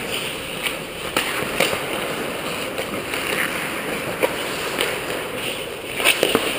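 Ice hockey play sounds: a steady scraping hiss of skates on the ice with scattered sharp clacks of sticks and puck, the loudest two close together about six seconds in.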